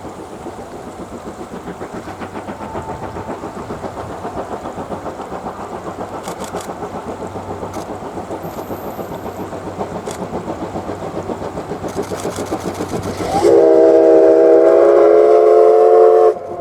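C11-class steam locomotive working steadily with a rhythmic beat that grows louder as it approaches, then sounding its steam whistle: one loud blast of several notes at once, about three seconds long, cut off sharply.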